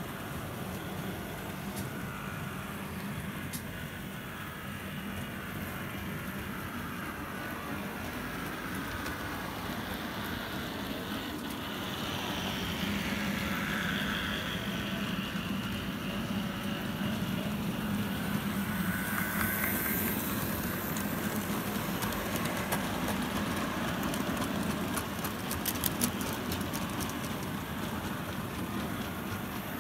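Model freight train running on the layout track: a steady rumble of small wheels on rails and the locomotive's motor, growing louder as the train passes close by around the middle and fading a little as it runs away. A few light clicks near the end.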